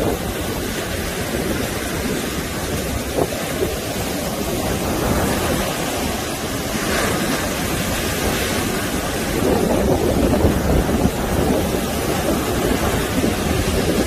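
Heavy surf breaking on a sandy beach: a continuous rush of crashing waves and foam washing up the shore, swelling louder as a big wave breaks about two-thirds of the way through. Wind rumbles on the microphone underneath.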